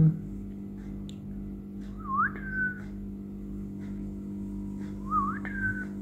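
Two short whistles about three seconds apart, each sweeping up and then holding a steady note, over a steady low hum.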